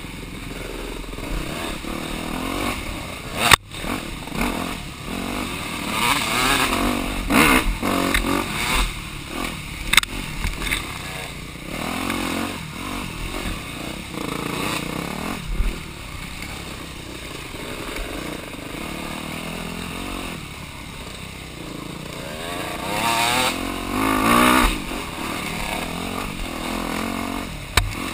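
Off-road dirt bike engine running and revving up and down as it climbs a rough trail, its pitch rising and falling with the throttle. A sharp knock comes about three and a half seconds in, and smaller clatter runs through as the bike goes over bumps.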